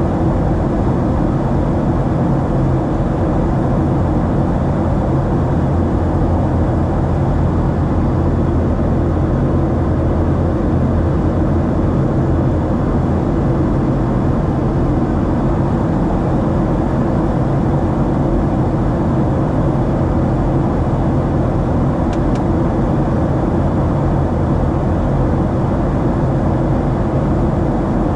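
Steady, loud drone of a Boeing 737-700's CFM56-7B jet engines and rushing air, heard from inside the passenger cabin.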